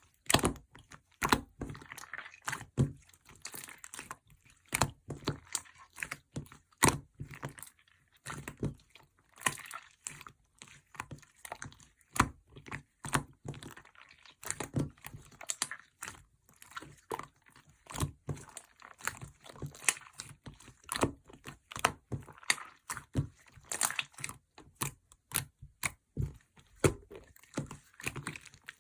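Slime being squished, folded and pressed by hand, giving a steady run of irregular sharp clicks, pops and crackles as air pockets burst.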